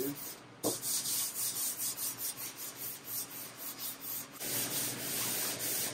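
Sandpaper on a firm flat hand block rubbing back and forth over a primed, body-filled metal panel of a 1951 Vendo 39 Coke machine. This is dry block sanding of the primer coat in final prep before paint. The strokes come quickly, about three a second, with a brief pause just after the start.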